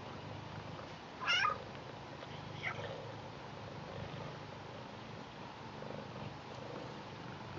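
British Shorthair cat purring steadily, with one loud, short, high meow about a second in and a fainter meow near three seconds.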